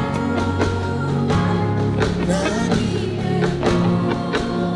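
Church praise-and-worship band playing a gospel song without words at this point: a steady drum beat over a moving bass line and held chords.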